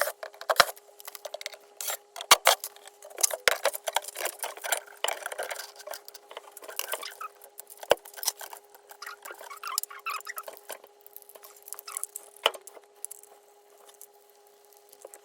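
Quick irregular clicks, taps and rattles of small hard parts being handled, busiest in the first half, over a steady low hum.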